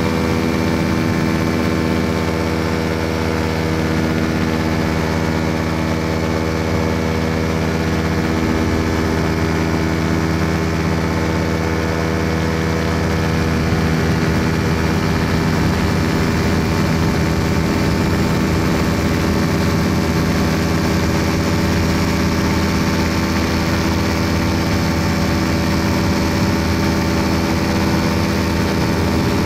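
Small aircraft engine running steadily in flight, its pitch holding constant throughout.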